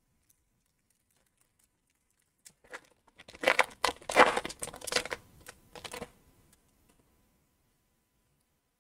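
Shiny hockey card pack wrapper being torn open and crinkled by hand: a few seconds of crackling rustles starting about two and a half seconds in.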